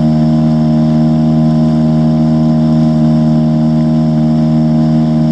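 Small two-stroke outboard motor on a dinghy running at steady revs, one even pitch throughout.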